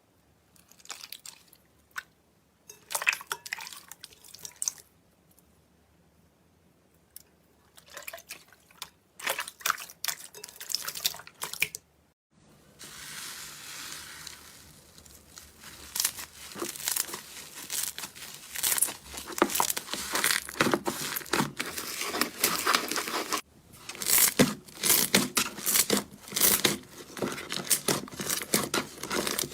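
Slime being squished, stretched and pressed by hand, making sticky crackling, popping and squelching sounds. The first half comes in short bursts with silent pauses; after that the crackling is nearly continuous.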